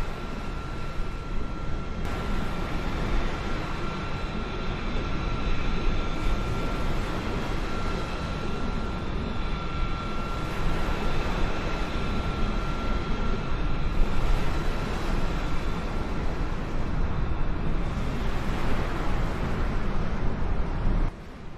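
Jet aircraft engines running with a steady, dense noise and a high whine held through it; the sound shifts abruptly about two seconds in and again about fourteen seconds in.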